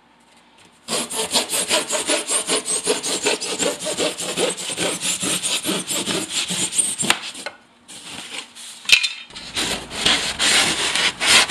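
A serrated bread knife sawing through rigid foam insulation board in quick back-and-forth strokes, starting about a second in. The sawing weakens briefly near eight seconds, then picks up again.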